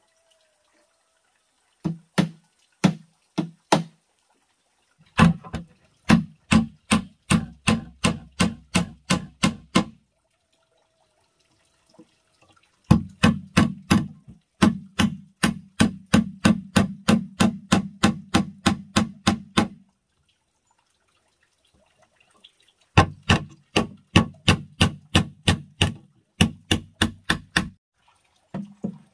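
Claw hammer driving nails into the wooden boards of a pigeon nest box: four runs of quick, even blows, about three a second, with short pauses between runs.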